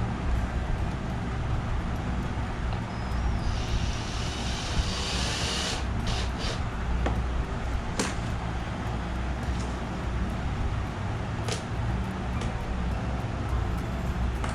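Steady low background rumble with a few sharp clicks, and a brief hiss lasting a couple of seconds about four seconds in.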